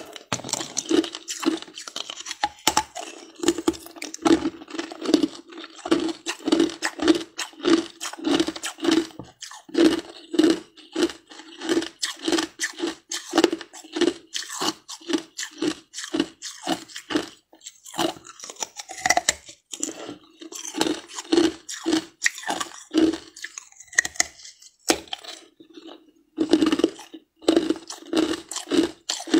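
Ice being bitten and crunched between the teeth: a quick run of crisp crunches, about two a second, with a couple of brief pauses.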